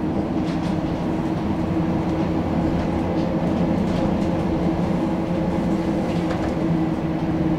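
Tram running along its track, heard from inside the passenger car: a steady rumble of wheels on rail with a steady hum, and a few faint clicks.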